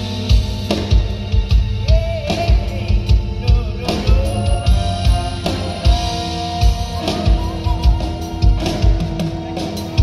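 Live band playing a pop-rock song through a PA: drum kit with a steady kick-drum beat, electric guitars, bass and keyboard.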